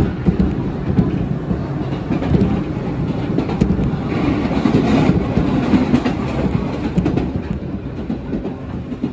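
Running noise of a passenger train heard from inside the carriage: a steady rumble of wheels on rail at speed, with a few sharp clicks at irregular intervals.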